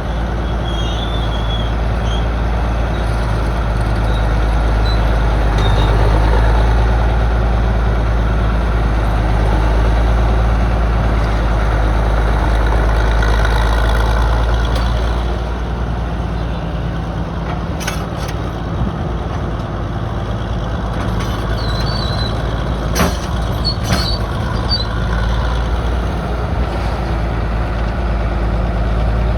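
Northwest excavator's engine running steadily under working load, louder in the first half, with a few sharp metallic clanks in the second half.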